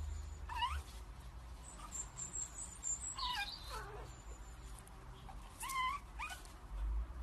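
Pug puppy whining, about four short high-pitched whimpers that slide up and down in pitch, as it struggles to climb a step.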